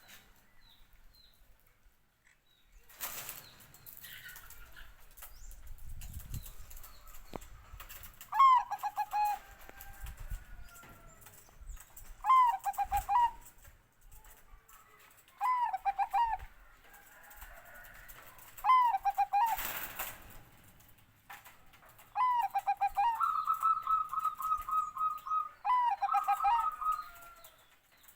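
Zebra dove (perkutut, Bangkok song strain) cooing: about six short, pitched cooing phrases a few seconds apart, one of them running on into a fast string of repeated notes. Two brief bursts of rustling noise come about three seconds in and again near the middle.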